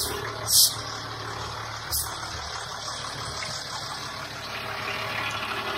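Truck camper's engine idling while its air system lets out three short, sharp hisses of escaping air in the first two seconds, then only the steady idle. The owners cannot place the air noise.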